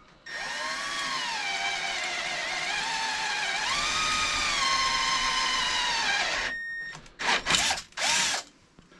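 Electric drill boring a hole into a bike frame: the motor whines steadily for about six seconds, its pitch sagging and recovering as the bit bites under load. It stops, then gives two short bursts near the end.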